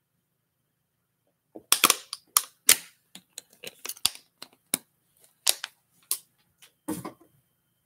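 Irregular sharp clicks and taps close to the microphone, a few of them loud, with a heavier knock about seven seconds in.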